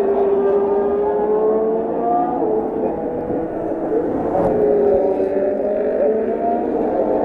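Formula 1 cars' 1.6-litre turbocharged V6 engines running past on a wet circuit, several engine notes overlapping and slowly rising and falling in pitch as cars pass and change speed.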